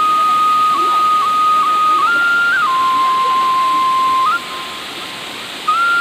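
Waterfall's steady rush of falling water under a loud, pure whistle-like tone that holds and steps between a few pitches like a slow melody. The tone breaks off about four seconds in and comes back near the end.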